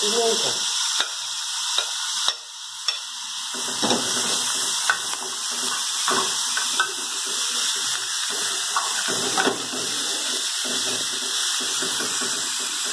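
Bacon and chopped food frying in oil in an aluminium pan, with a steady sizzle throughout. A metal spoon stirring the food clicks and knocks against the pan every second or so.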